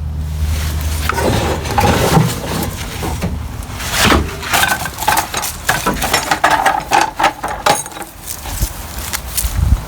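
Hand-work noises on a string trimmer being dismantled: irregular clicks, knocks and rattles of plastic and metal parts, with a low hum in the first couple of seconds.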